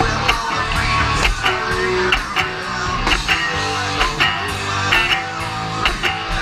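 Live rock band playing an instrumental passage: electric guitar over a steady drum beat, with the drum hits about twice a second.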